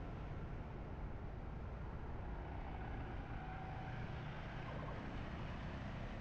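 Motorbike ride through city traffic: a steady low rumble of engine and road noise, with surrounding vehicles.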